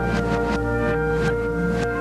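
Background music with held synth-like tones over a low drone and a steady beat, without singing.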